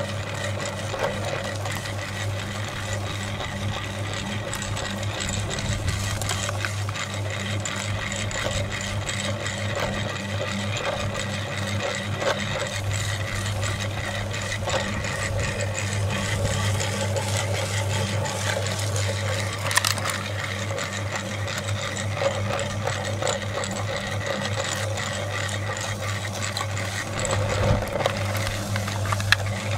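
Metal meat grinder running steadily with a constant hum, crunching colourful cookie sticks in its auger, with many small crackles and clicks from the breaking cookies.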